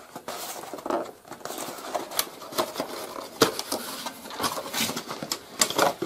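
Cardboard packaging being handled: irregular rubbing and scraping with a few light knocks as a vacuum cleaner's soft roller floor head is worked out of its cardboard insert.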